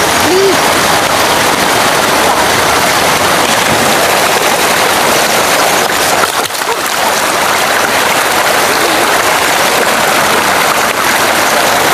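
Steady rushing and splashing of water from stone spouts pouring into a spring-fed bathing pool.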